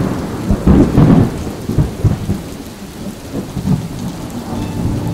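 Deep rumbling crashes, loudest in the first second or two, over a steady rain-like hiss that fades down. Sustained musical tones come in near the end.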